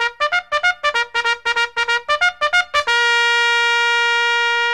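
Intro music: a quick run of short staccato notes, about five a second, then one long held note from about three seconds in.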